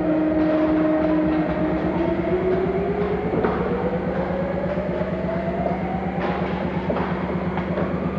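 A steady mechanical drone with a pitched whine that rises slowly over several seconds, and a few sharp knocks over it.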